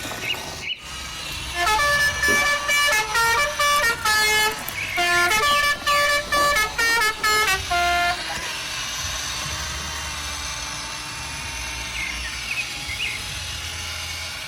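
A vehicle horn playing a short tune of stepped notes for about six seconds, then a steady engine hum.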